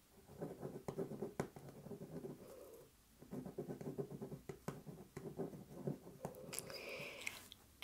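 Handwriting on paper: quick scratchy pen strokes with small taps, in two runs separated by a short pause about three seconds in.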